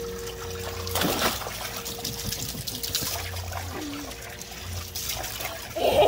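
Water sloshing and trickling in a shallow paddling pool as a toddler moves about in it, with one louder splash about a second in.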